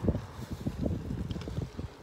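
Wind buffeting the microphone of a bicycle-mounted or handheld camera while riding, heard as an irregular low rumble that gusts up and down several times a second.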